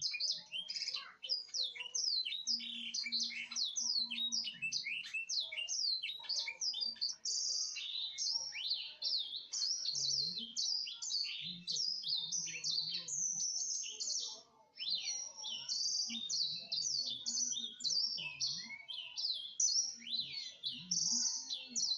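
Many small birds chirping rapidly and continuously, overlapping high-pitched calls with hardly a pause.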